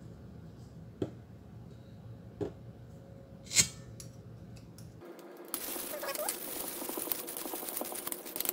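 A metal teaspoon clinks a few times against a stainless steel bowl; the third clink, about three and a half seconds in, is the loudest. From about five seconds a wire whisk beats egg batter in the bowl, with fast, continuous ticking and scraping of metal on metal.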